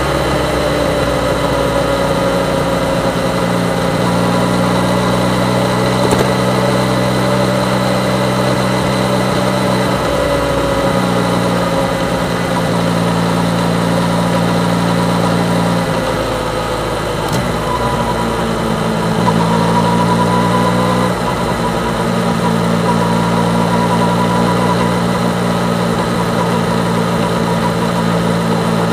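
Yamaha MT-09's three-cylinder engine running at a steady, low engine speed, its note shifting briefly a few times.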